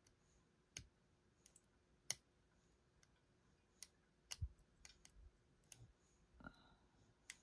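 Sharp, faint clicks at irregular intervals from a lock pick working the pins of a pin tumbler lock, as pins set and then drop again under tension.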